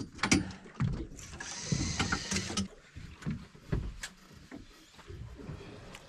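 Water slapping against the hull of a small fiberglass boat in irregular low knocks. Near the start there are a few sharp clicks from the baitcasting rod and reel as a jig is cast, and about a second and a half in there is a brief hiss.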